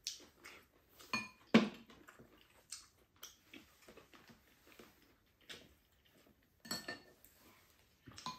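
Spoons and chopsticks clinking and scraping against ceramic bowls during a meal: a scatter of short sharp clinks, some briefly ringing, the loudest about one and a half seconds in.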